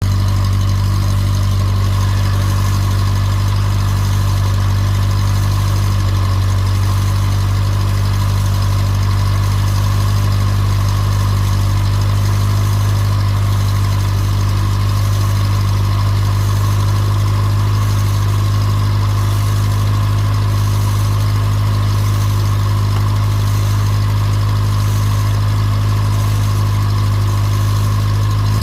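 Engine of a Yugoslav-made car idling at a steady, even pitch.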